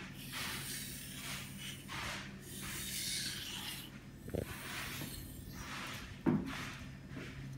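Japanese kitchen knife blade drawn over a whetstone in repeated sharpening strokes, a rasping scrape about once a second, with two short knocks partway through.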